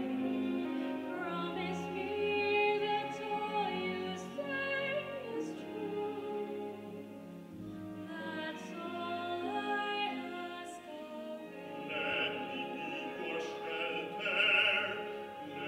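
Operatic singing with vibrato, accompanied by a grand piano. The voice grows louder and brighter about twelve seconds in.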